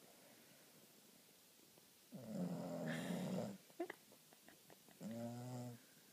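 Boston Terrier snoring in her sleep, as short-muzzled breeds often do: two snores, a longer rough one about two seconds in and a shorter one with a clear low pitch near the end. A few faint clicks fall between them.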